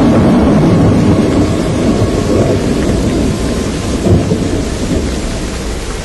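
Storm noise: a loud, low, rolling rumble over a steady rain-like hiss, with a brief jolt about four seconds in.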